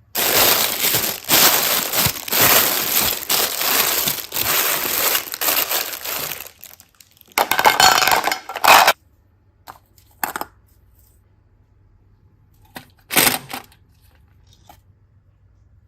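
Dense crinkling and crunching handling noise for about six seconds, a shorter burst a second later, then a few brief crackles.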